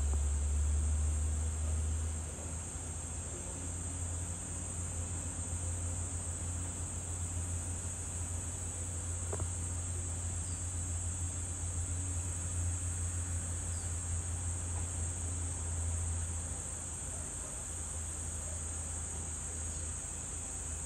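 A steady, high-pitched chorus of insects over a low, steady rumble that is loudest in the first couple of seconds. There is one faint click about nine seconds in.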